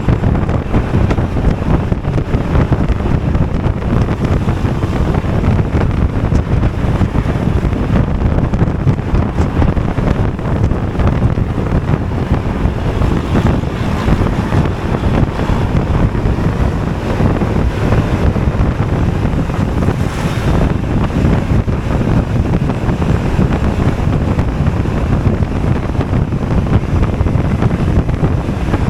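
Loud, steady wind noise on the microphone of a Honda Forza 250 scooter in motion, mixed with its road and engine noise.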